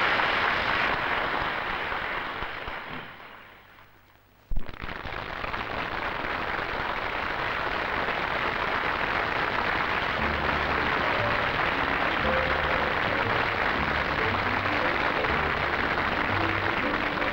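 Studio audience applause with music underneath fades away to near silence, then an abrupt click about four and a half seconds in as the applause comes back. Music with a clear bass line joins the applause about ten seconds in.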